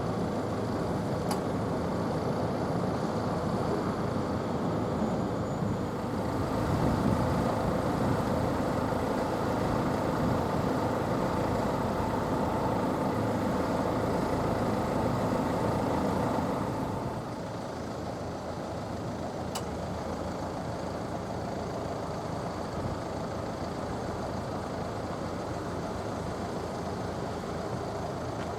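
Steady vehicle rumble that grows louder about a fifth of the way in, holds for about ten seconds, then drops to a quieter steady level.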